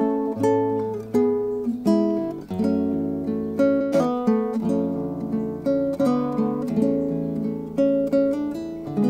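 Acoustic guitar played fingerstyle in a slow instrumental tune, with plucked melody notes and chords ringing over bass notes.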